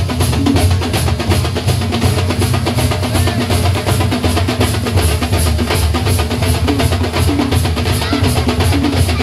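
A troupe of large double-headed drums beaten with sticks, playing together in a fast, steady beat with a heavy low boom.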